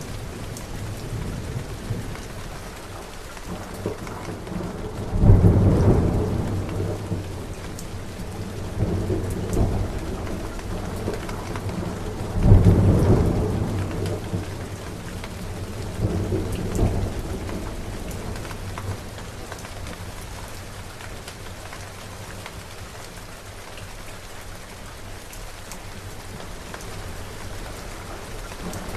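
Steady rain falling, with thunder: two loud claps about five and twelve seconds in, each rumbling away over several seconds, and softer rumbles between.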